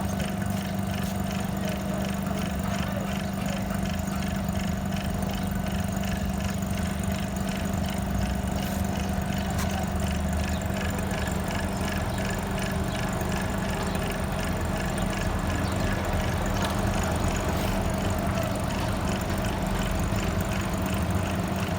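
Motor-driven refrigeration service equipment running steadily: a constant hum with a faint, even ticking, unchanging throughout.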